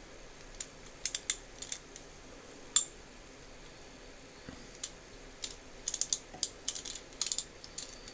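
Small metal parts of a ratchet head clicking and tapping as they are handled and fitted, in irregular single clicks with a quick run of clicks about six seconds in.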